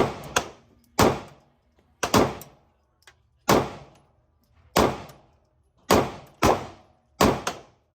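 Gunshots at a shooting range: about eleven sharp reports at uneven intervals, some fired as quick pairs, each with a short echoing tail.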